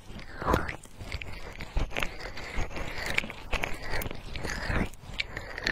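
Fingers rubbing and pressing on the silicone ears of a binaural microphone, close and crackly. The rubs and presses come irregularly, about every half second, each with a brief sweep in pitch and a soft low thump.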